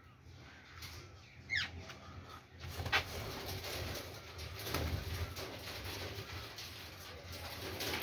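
Aviary birds calling, mainly young Indian ringneck parakeets: a quick rising-and-falling squawk about a second and a half in, with scattered short calls and clicks over a low cooing.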